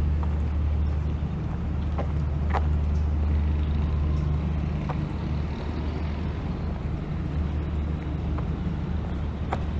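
Car driving slowly, its engine and tyres giving a steady low drone, with a few faint ticks.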